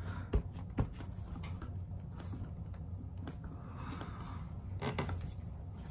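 Soft rubbing of a gloved hand over paper being pressed onto a wood panel, with a few light clicks in the first second, over a steady low room hum.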